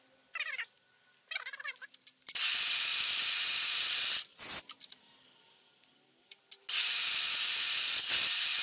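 Metal scraping and clicking as a steel index pin is slid through the holes of an aluminium index plate, followed by two steady high hissing bursts of about two seconds each, with the scratchy metal noises between them.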